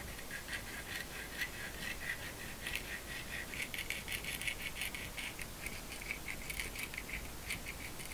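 Plastic nozzle of a bottle of thin super glue dragging over the surface of a hardened paper blank as the glue is spread on, a fast, quiet run of small scratchy clicks, busiest in the middle.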